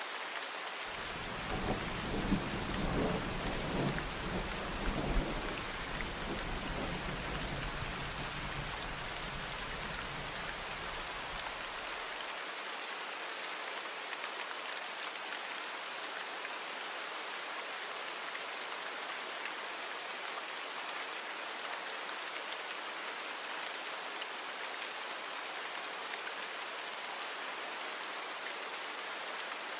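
Steady rain falling, with a roll of thunder that starts about a second in, peaks with a few louder jolts over the next few seconds, and dies away after about eleven seconds, leaving only the rain.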